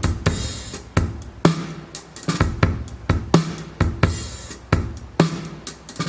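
Drum kit playing a steady groove: deep kick drum thumps and sharp snare hits with cymbals ringing between them, about two hits a second.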